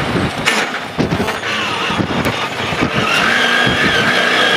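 GAZ rally car's engine heard from inside the cabin, pulling hard at stage speed with its pitch rising and falling through gear changes. About three seconds in, a steady high tyre squeal joins as the car turns through a right-hander.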